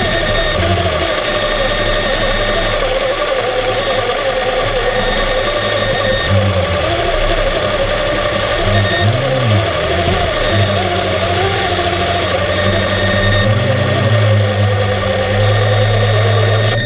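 Electric motors of a remote-controlled underwater camera heard through the water: a steady low hum with a wavering whine above it, cutting out and back in, and twice sweeping down and back up in pitch as the motors change speed.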